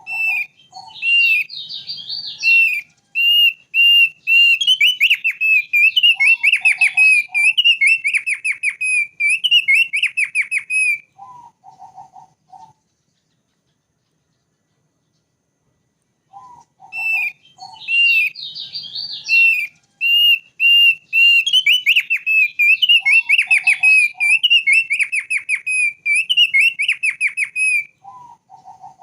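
Thick-billed white-eye singing: two long bouts, each about eleven seconds of rapid, repeated high whistled notes with a few lower notes mixed in, separated by a pause of about four seconds. The second bout is an exact repeat of the first.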